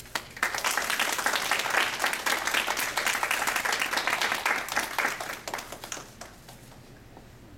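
Audience applauding, starting about half a second in and dying away after about six seconds.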